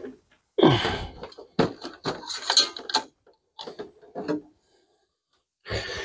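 Handling noise as the ceiling fan is picked up: knocks and rustles in several short bouts with quiet gaps between, the loudest about half a second in.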